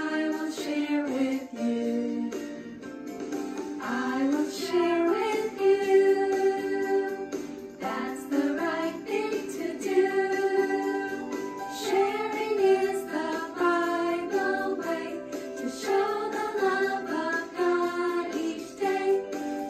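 Music: a woman singing a children's Sunday-school song over an instrumental backing track.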